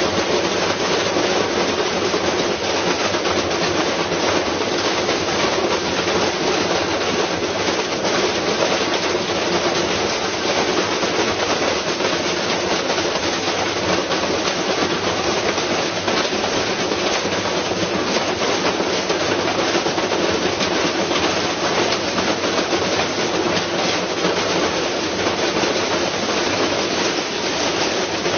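Washing machine running with a brick loose in the drum: a steady, dense clatter of rapid knocks and rattling.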